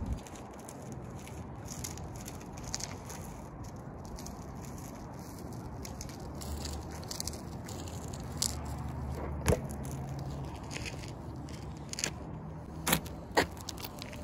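Steady outdoor street noise with a low hum that swells in the middle, then a few sharp clicks and knocks near the end as a BMX bike is brought to rest right beside the microphone.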